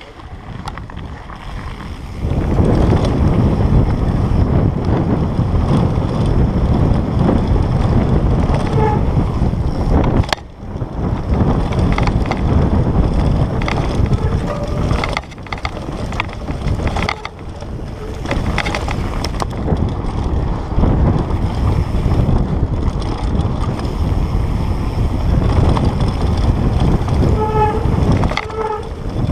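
Wind buffeting a helmet-mounted GoPro's microphone over the rumble and rattle of a Specialized Status 160 mountain bike riding fast down a rocky downhill trail. It starts quieter and gets loud about two seconds in as the bike picks up speed, with brief dips along the way and a few short squeals near the end.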